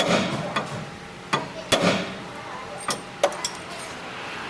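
Hand tools striking and clinking against metal during axle repair work: about five sharp knocks, irregularly spaced.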